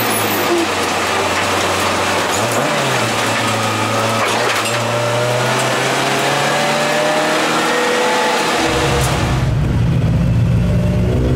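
Toyota AE86's dry-sump 4A-G engine running under load while being run in, heard from inside the cabin, its pitch drifting up and down gently with the revs. About nine seconds in it gives way suddenly to a steady low rumble.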